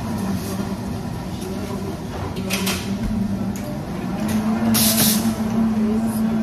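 Espresso bar at work during a busy café shift: a steady machine hum under the clatter of cups and equipment, with a short, loud hiss about five seconds in.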